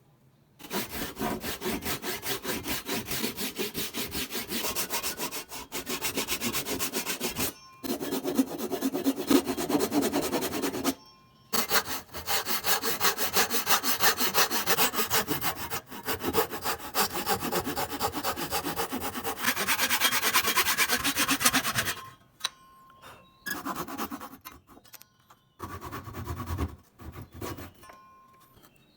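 Hand saw cutting wood with fast, even back-and-forth strokes, pausing briefly twice, then stopping after about 22 seconds, followed by a few short scraping strokes.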